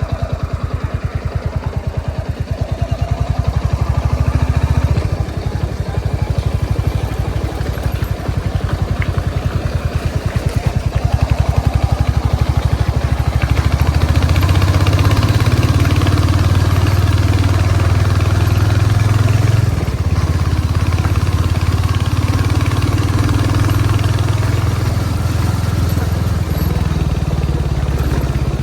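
Royal Enfield Continental GT 650's parallel-twin engine running under way with a steady pulsing exhaust note. It pulls harder a little before halfway and eases off about two-thirds of the way through.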